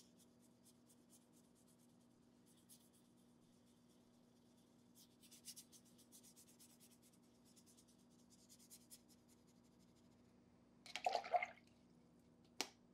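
Faint, soft scratching of a wet synthetic round brush stroked over water-soluble wax pastel marks on mixed-media paper, dissolving the pastel into a wash. A brief louder rustle comes about eleven seconds in, and a single click just before the end.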